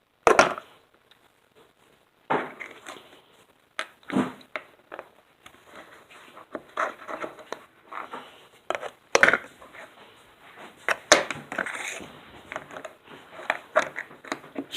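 Small plastic containers and packaging being handled: irregular clicks, knocks and crinkling, with a few sharper snaps among them, the loudest right at the start and about eleven seconds in.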